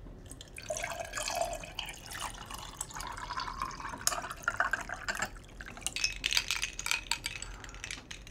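Water poured from a large insulated jug into a ceramic mug, starting about a second in, its pitch rising as the mug fills. The pour stops about five seconds in and is followed by a few light clicks and knocks.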